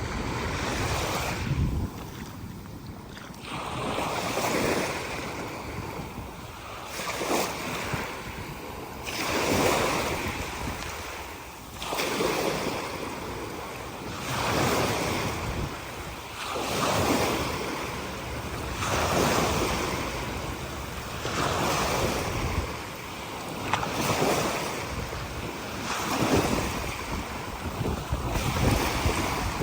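Small waves breaking on a sandy beach, each surge of surf rising and falling every two to three seconds, with wind buffeting the microphone.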